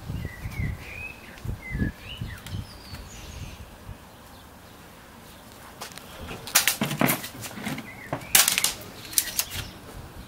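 A small bird chirps in the first few seconds. Later come two short bursts of rapid, sharp clattering, each about a second long, and these are the loudest sounds.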